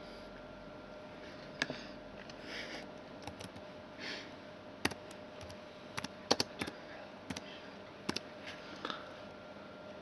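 Computer keyboard being typed on: scattered, irregular key clicks, over a faint steady hum.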